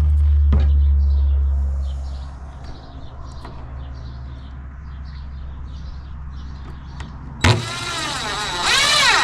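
Electric drill-driver motor whirring in short runs as screws are driven, the pitch rising and falling with the trigger; a loud low hum fades out over the first two seconds, and the louder whirr comes near the end.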